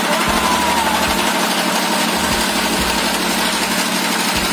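A small wooden boat's engine running steadily as the boat moves across the water.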